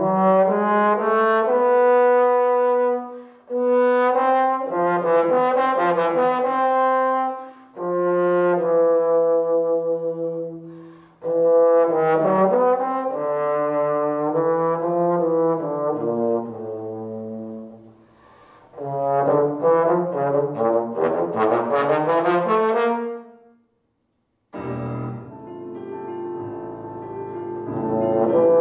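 Unaccompanied trombone playing melodic phrases separated by short breaks for breath. About 24 seconds in it stops briefly, then comes back on a low note to begin the next phrase.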